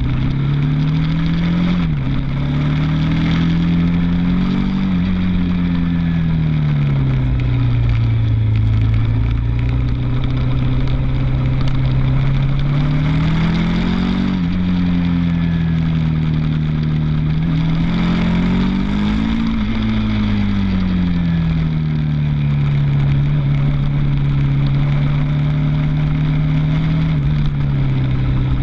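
Suzuki TL1000's 90° V-twin engine heard onboard at track speed, its note holding steady for long stretches, climbing several times and dropping sharply three times. Wind rush runs under it.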